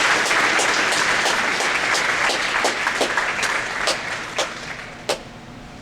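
Audience applauding, the applause dying away over the last couple of seconds to a few scattered claps.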